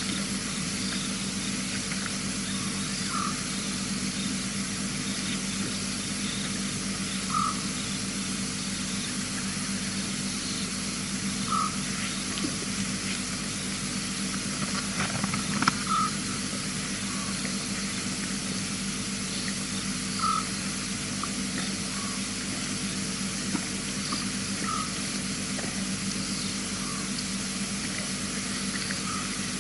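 Outdoor night ambience through a wildlife camera's microphone: a steady hiss over a low hum, with a short high call repeating about every four seconds and a few faint clicks near the middle.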